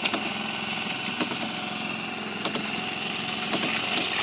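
Small engine on the fishing boat running steadily at idle, with a few sharp clicks over it.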